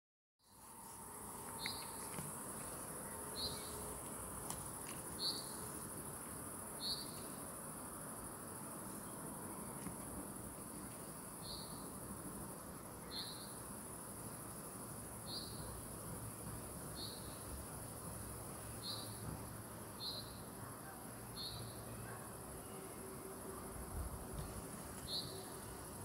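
Crickets trilling steadily at a high pitch, with a short chirp repeating every one and a half to two seconds.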